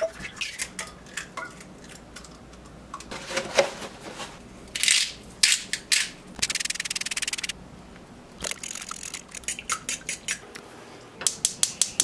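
Eggs being cracked and beaten in a stainless steel mixing bowl: sharp taps and clinks, with a fast scratchy rattle for about a second midway. Near the end comes a quick run of loud clicks from a gas stove's igniter as the burner lights.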